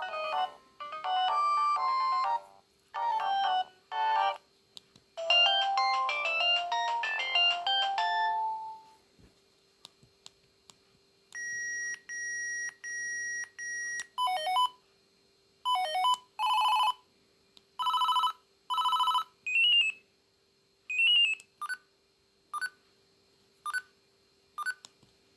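Siemens A51 mobile phone playing its built-in ringtones through its small speaker: an electronic melody for about the first nine seconds, a few faint clicks, then a steady beeping tone, and then a run of short beeps and chirps.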